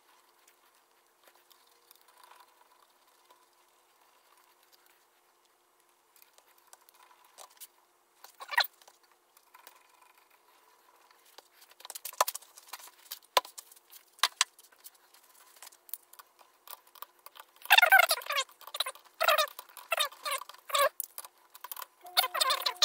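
Wrench and metal handling noises on an engine's cylinder-head nuts: faint scattered ticks at first, then sharp metallic clicks, and a dense run of clicking and clatter over a few seconds near the end.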